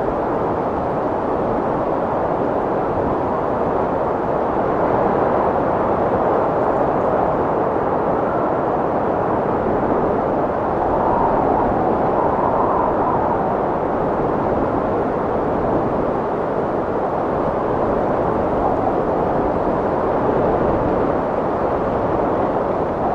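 Strong wind blowing steadily, a dense rushing noise that swells a little twice, with no gusts dying away.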